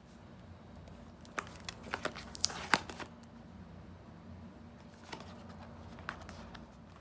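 Plastic packaging being handled and crinkled, a cluster of sharp crackles and clicks about a second and a half to three seconds in, then a few more near the end.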